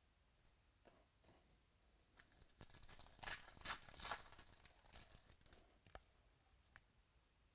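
A foil pack of 2018 Donruss Baseball cards being torn open by hand, the foil wrapper crinkling and ripping for about three seconds starting some two seconds in, loudest in the middle.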